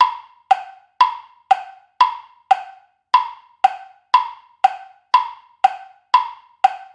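Quiz countdown-timer sound effect: a clock-like wood-block tick repeating evenly, about two ticks a second.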